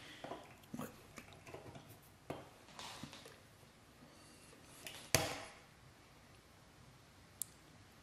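Faint handling clicks and rustles of multimeter test probes being pushed into the slots of a wall outlet, with one sharper click about five seconds in.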